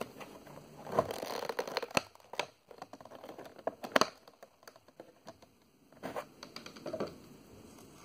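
Clear plastic packaging insert being handled and pulled away from a vinyl figure: irregular clicks, crinkles and scratchy rustles, with a dense stretch about a second in and a sharp click near four seconds.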